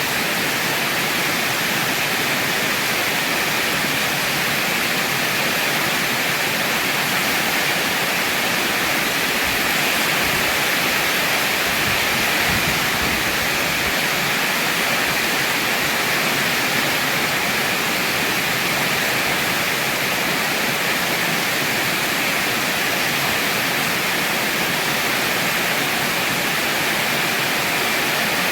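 Heavy rain pouring steadily as an even, unbroken hiss.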